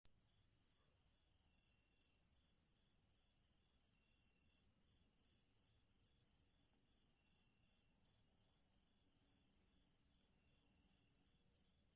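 Cricket chirping in a continuous high trill with a fast, even pulse. This is a stock sound-effect recording played at PAL speed, slightly faster and higher in pitch.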